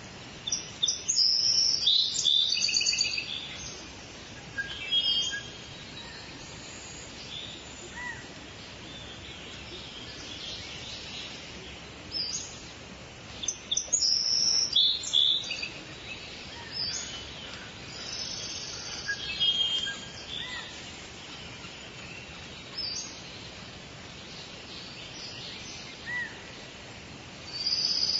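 Several birds singing and calling in short, high-pitched phrases over a steady background hiss, with louder bursts of song about a second in and again about halfway through.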